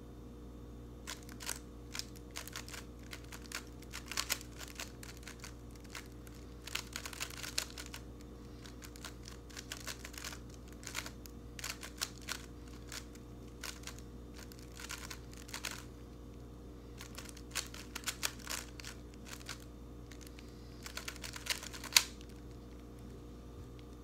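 Rubik's cube being turned rapidly by hand in a speedsolve: bursts of quick plastic clicks and clacks as the layers snap round, broken by brief pauses. The single loudest click comes near the end.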